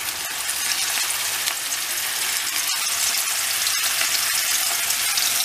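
Raw köfte (minced-meat patties) sizzling steadily in hot oil in a non-stick frying pan as they are laid in.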